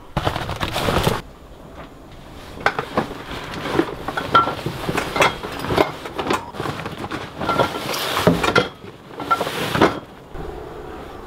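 A large nylon bag holding a packed Takacat inflatable tender is dragged and hauled up through a deck hatch. The fabric rustles and scrapes in repeated loud bouts, with knocks as the bag bumps the hatch and deck.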